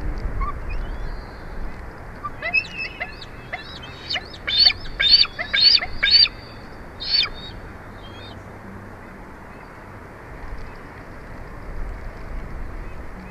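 Bald eagle calling: a run of about ten short, high piping notes, starting about two seconds in and ending by about the seven-second mark, loudest in the middle. Underneath is a steady background hiss.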